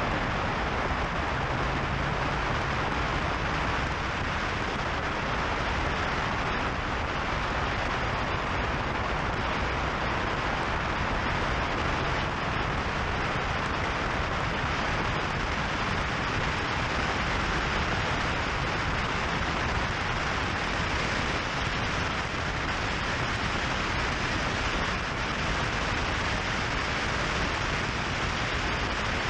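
Steady rush of wind and road noise on the microphone of a camera mounted on a motorcycle cruising along at road speed, with no let-up or change in pace.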